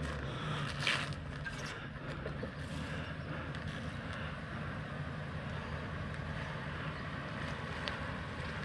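Class C motorhome on a Ford chassis creeping along a dirt track at low speed, its engine running with a steady low drone.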